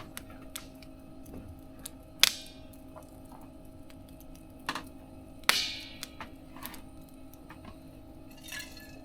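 Wood fire in a mesh fire pit crackling, with two loud sharp pops about two seconds in and halfway through, scattered small ticks, and a brief hiss near the end, over a steady low hum.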